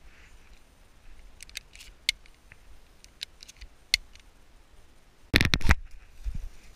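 Scattered sharp clicks and twig snaps from moving through dry scrub, then about five seconds in a very loud half-second blast, a shotgun shot overloading the microphone, cut off abruptly and followed by a couple of low thumps.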